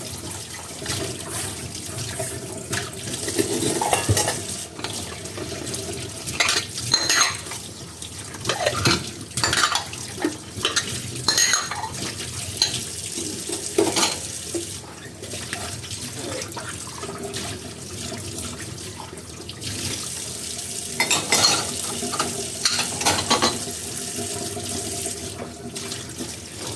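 Dishes washed by hand under a running tap: water splashing in the sink, with frequent clinks and knocks of dishes and cutlery against one another and the basin.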